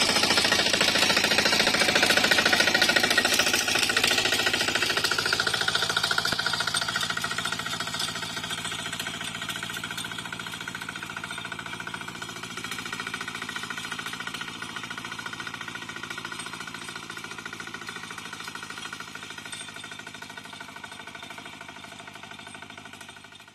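Single-cylinder diesel engine of a two-wheel hand tractor with cage wheels, running with a rapid, even knocking beat. It fades steadily as the tractor is driven away.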